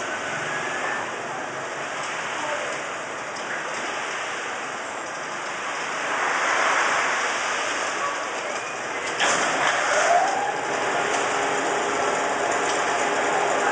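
Fried-pellet snack processing machinery running: a steady, rain-like hiss. About nine seconds in comes a sudden clatter, followed by a steady mechanical whine.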